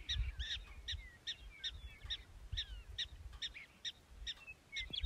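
Black-tailed prairie dog barking its alarm call: a steady run of short, sharp yips, about two or three a second, with a low rumble underneath.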